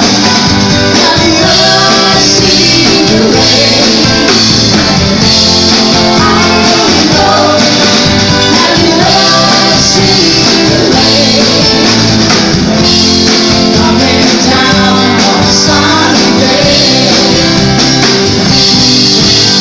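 Live band playing a rock song at full volume: a woman singing lead over strummed acoustic guitars, keyboard and drum kit.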